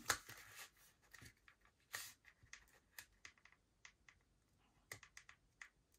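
Faint, scattered light clicks and taps of hands creasing and handling folded cardstock.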